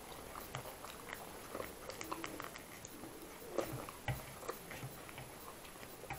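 Close eating sounds: chewing with small, scattered mouth clicks, and butter naan being torn by hand, with a couple of sharper ticks a little past halfway.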